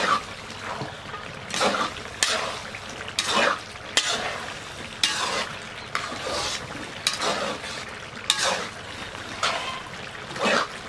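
Metal ladle stirring and scraping thick duck curry around a large iron wok, in repeated strokes roughly once a second.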